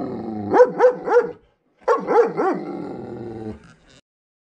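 German Shepherd vocalizing: two runs of three quick rising-and-falling pitched barks, each run trailing off into a drawn-out held tone. It cuts off abruptly about four seconds in.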